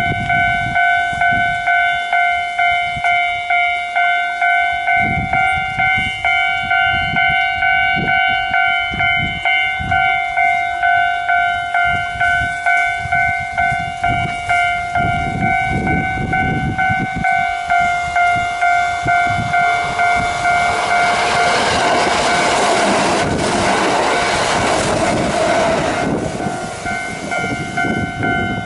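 Japanese railway level-crossing warning bell ringing in a steady two-tone clang, about one and a half strokes a second. A Kintetsu train passes over the crossing: its wheel and running noise swells from about two-thirds of the way through, becomes the loudest sound, and fades near the end while the bell keeps ringing.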